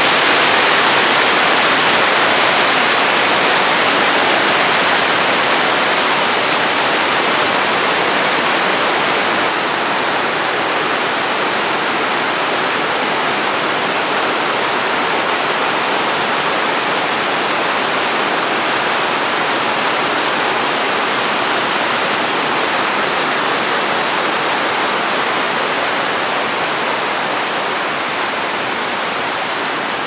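Steady, even rush of a tall multi-tiered waterfall's water plunging and splashing onto rock. It eases slightly in loudness toward the end.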